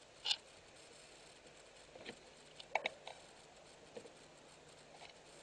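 Faint, scattered small metal clicks and taps as a pin punch is worked through a chainsaw piston to push out its piston pin, with a sharper cluster of clicks a little before the middle.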